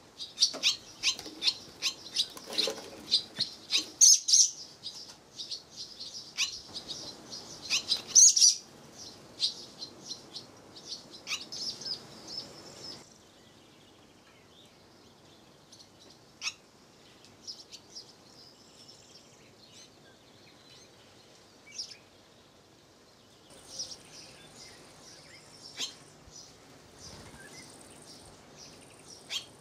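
Swallows twittering: rapid high chirps, dense and loud for the first dozen seconds, then only an odd chirp, picking up again near the end. A faint steady high-pitched buzz comes in near the end.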